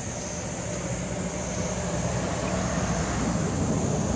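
A steady low rumble of background noise with a faint hiss above it, growing slightly louder toward the end.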